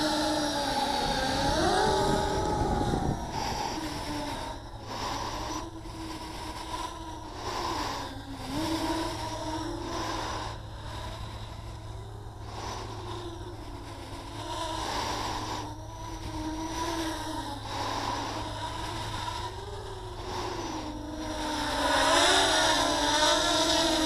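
Small home-built quadcopter's electric motors and propellers whining in flight, the pitch wavering up and down as the throttle is adjusted. Loudest in the first few seconds and again near the end, quieter in between.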